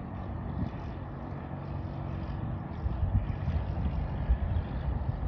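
Cessna 172's piston engine and propeller droning steadily as it flies past, mixed with gusts of wind buffeting the microphone.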